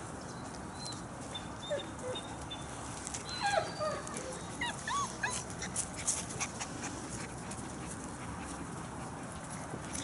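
Month-old German Shepherd puppies whimpering and yipping in short squeaky calls that bend up and down in pitch, bunched mostly between about two and six seconds in, over steady background hiss.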